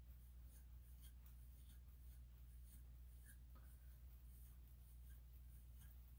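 Faint scratching strokes of a metal comb being drawn through a long-haired Chihuahua's coat, short and irregular at about two a second, over a steady low hum.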